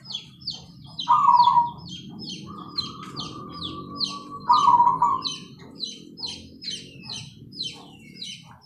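Caged zebra doves (perkutut) cooing: loud paired notes about a second in and again a few seconds later, with a long held note between them. Under them runs a steady series of high, falling chirps, about two a second, from another small bird.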